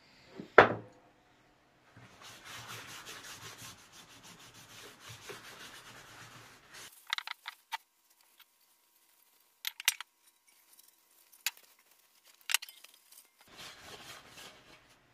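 Paper towel rubbed over bare steel lamp parts while wiping them down with acetone, with a single loud knock about half a second in and a few sharp clicks and taps in the middle.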